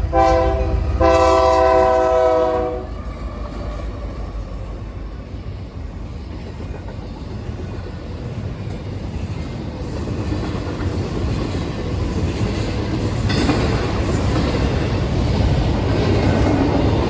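A loud horn sounding a chord of several notes in two blasts, the second about two seconds long. A steady low rumble follows.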